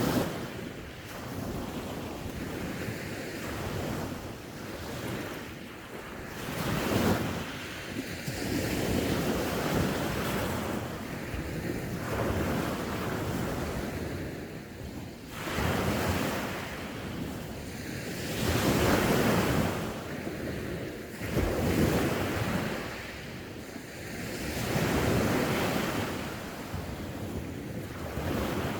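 Sea waves breaking and washing onto the shore, the surf swelling and ebbing every few seconds.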